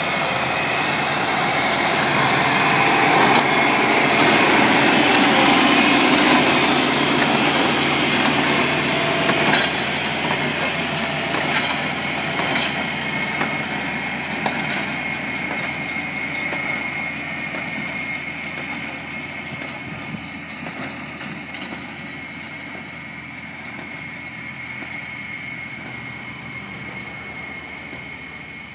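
John Deere 4020 tractor pulling a John Deere 214W square baler: the engine running under the clatter of the working baler. It is loudest a few seconds in, then fades steadily as the rig moves away.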